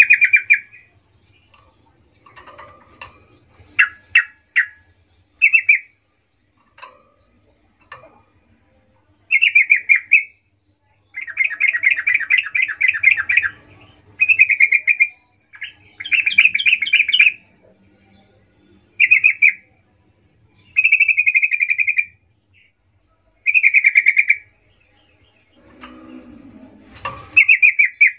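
Yellow-vented bulbul singing its bubbly, chattering song in about a dozen loud phrases with short pauses between, the longest rolling on for about two seconds. A brief thump and rustle comes just before the end.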